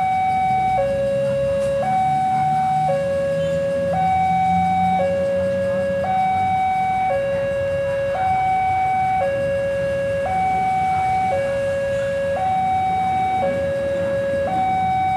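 Railway level-crossing alarm sounding a steady two-tone hi-lo, each note about a second long, repeating evenly. Underneath runs the low rumble of a diesel locomotive's engine.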